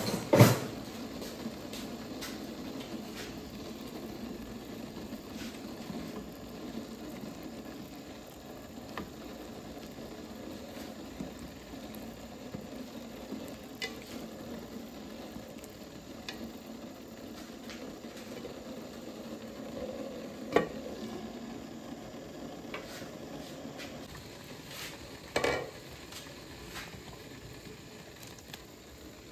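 Cooking sounds: a steady sizzle with scattered small clicks, and two louder clanks of a utensil or pan, one just after the start and one near the end. The sizzle fades down a few seconds before the second clank.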